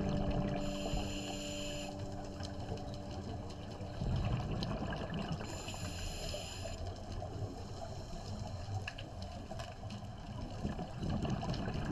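Scuba diver breathing through a regulator underwater: a hissing whine of inhalation about a second in and again about six seconds in, over a steady crackle of exhaled bubbles.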